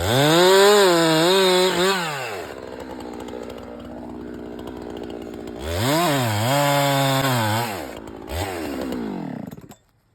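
Husqvarna two-stroke chainsaw run up to full throttle twice with idling in between, then a brief blip and the engine cuts off suddenly near the end.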